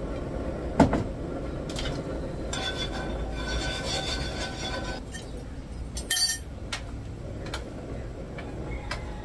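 Cookware clinking: a sharp clink about a second in and a louder clatter about six seconds in, over a steady low rumble, with a faint high whine in the middle.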